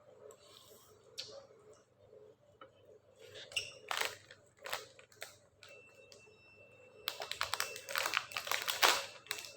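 Close-up eating sounds of a person eating black bean sauce noodles: scattered mouth clicks and smacks, then a dense rapid run of clicking for about two seconds near the end.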